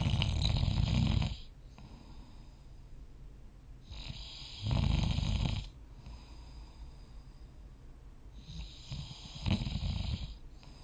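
A sleeping person snoring: three long snores about four seconds apart, each with a low rattle, and quiet stretches between them.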